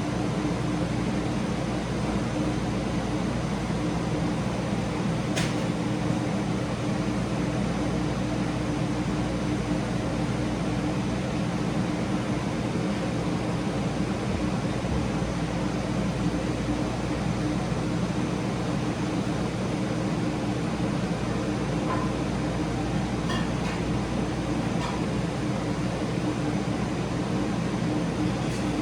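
Steady whooshing air and hum of several ceiling fans running together, while a Harbor Breeze Classic (Springfield II) ceiling fan coasts down after being switched off. A single sharp click about five seconds in.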